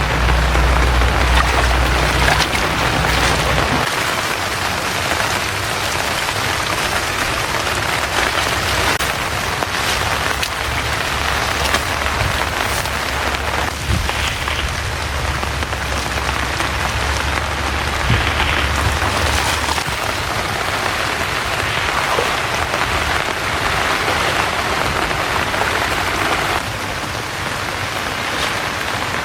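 Steady rain falling, an even hiss of many drops on surfaces. A low rumble lies underneath for the first few seconds and again through the middle.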